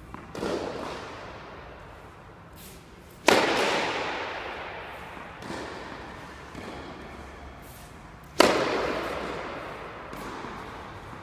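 Tennis racket striking the ball on two serves about five seconds apart, each sharp crack ringing on in the echo of an indoor tennis hall. Softer knocks of the ball bouncing come between them.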